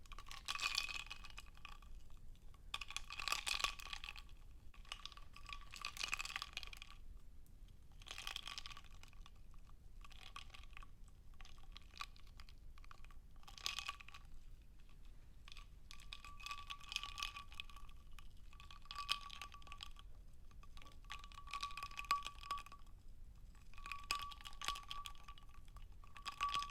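Ice cubes in a glass of water clinking against the glass in about ten separate bursts, each lasting a second or two, with a light ringing tone from the glass.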